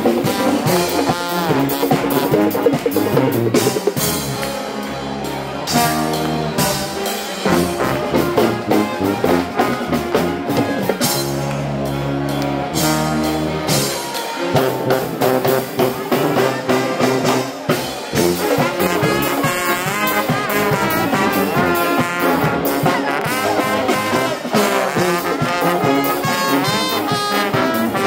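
Live brass band playing a tune on trombones, trumpet and sousaphone, with a drum kit.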